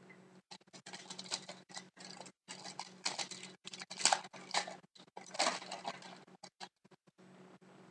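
2011-12 Pinnacle hockey cards being handled and flipped through one after another: a quick, uneven run of clicks and brief rustles of card stock.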